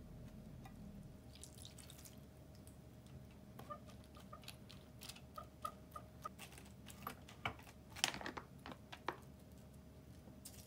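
A metal utensil tapping and scraping against the ceramic pot of an electric hot plate while crushing canned whole tomatoes: a string of light, irregular clicks, loudest about eight seconds in.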